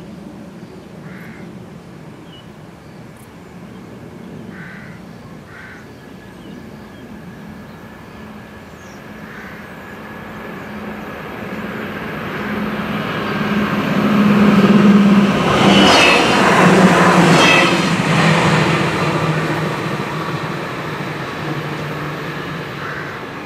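DB regional train passing over a level crossing: it comes in from a distance, grows steadily louder, is loudest as it goes by about two-thirds of the way through, then fades away.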